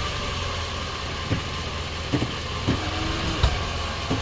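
A 2019 Nissan Sentra with a CVT idling steadily, with a few short knocks. The strongest is a low thud about three and a half seconds in, which fits the clunk the car makes when it is shifted into reverse.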